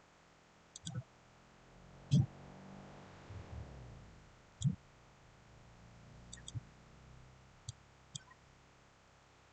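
Computer mouse clicking: scattered single clicks and a couple of quick double clicks, some with a soft low thud.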